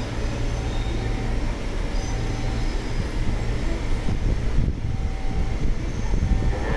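Steady low rumble of a train.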